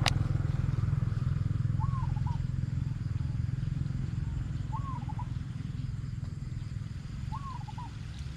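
A vehicle engine, perhaps a passing motorbike, runs with a low hum that slowly fades as it moves away. A single sharp click comes at the start. A bird gives a short rising-and-falling call with a couple of quick notes after it, three times, about two and a half seconds apart.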